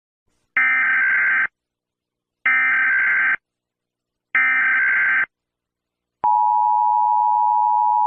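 Emergency Alert System header: three one-second bursts of SAME digital data, about two seconds apart, then the steady two-tone EAS attention signal begins about six seconds in, announcing a tornado warning.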